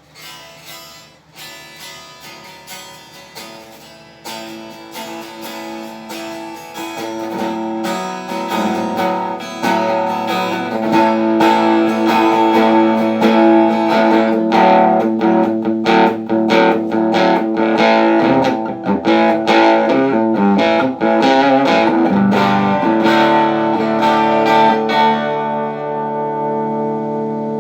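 Electric guitar played through a Kay 703, a small 2-watt tube amp freshly rebuilt with new tubes, caps and resistors. Picked notes and strummed chords grow louder over the first ten seconds or so, and a final chord is left ringing near the end.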